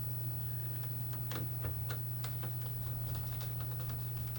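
Faint, irregular small clicks and ticks of a screwdriver working on screws and plastic parts while a PlayStation 5's cooling fan is being unscrewed, over a steady low hum.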